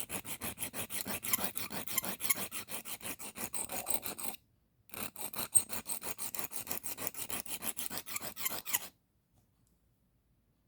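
Carbon steel pocket knife blade stroked quickly back and forth on a sharpening stone, a steady run of gritty rasping strokes with a brief pause about halfway, stopping shortly before the end. One side of the edge is being ground to raise a burr on the other.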